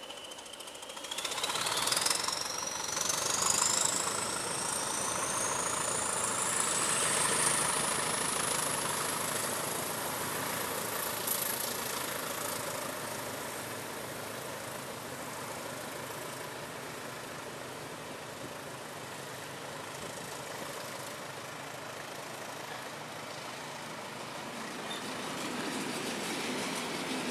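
Train passing: a rake of London Underground S Stock carriages hauled by Class 20 diesel locomotives, with a steady rumble and clatter of wheels on rail. A high whine rises steadily in pitch over the first ten seconds. Near the end the trailing Class 20s draw level and their engine sound swells.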